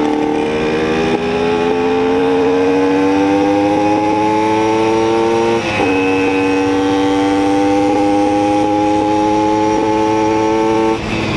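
Simson two-stroke moped engine pulling under acceleration: its pitch climbs steadily for about five and a half seconds, dips briefly at a gear change, then holds high and creeps up again before easing off near the end.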